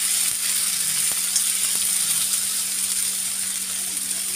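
Boiled potatoes sizzling in hot mustard oil in a kadhai as a metal spoon stirs and breaks them up: a steady hiss with a few light ticks of the spoon against the pan.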